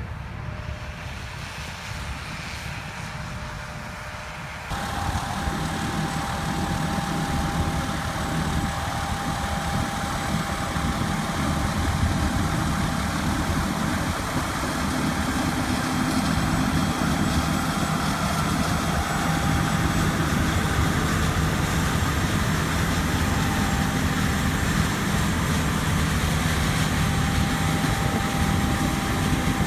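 John Deere S-series combine running while harvesting wheat: a steady engine drone with a held whine. It jumps louder about five seconds in and then slowly grows louder still.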